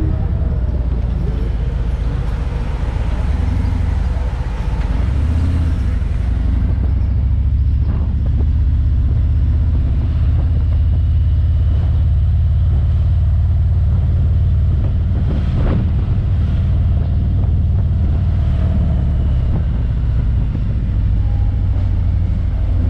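Touring motorcycle engine running at low speed in slow city traffic, a steady low rumble with road and traffic noise around it.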